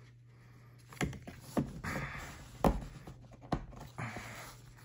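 Punched cardboard game pieces being handled and pushed into their slots: about four sharp taps and clicks, the loudest past the middle, with short scrapes of cardboard rubbing on cardboard between them.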